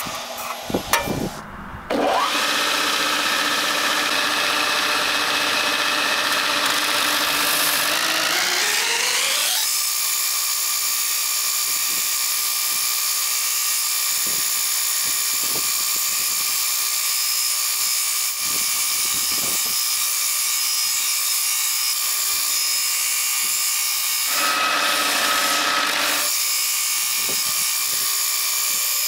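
Belt grinder running with an ash axe handle being shaped against its abrasive belt. The whining note rises for several seconds after about two seconds in, then holds steady. It grows louder and brighter for a moment near the end.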